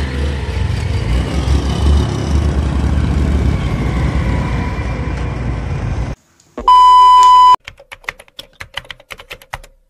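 Heavy wind rumble on the microphone from a moving motorcycle, cutting off abruptly about six seconds in. A loud steady beep of about a second follows, then a rapid run of keyboard-typing clicks as a typed-text sound effect.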